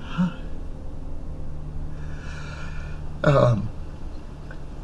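A man crying: short breathy catches of breath, then a louder sob that falls in pitch about three seconds in.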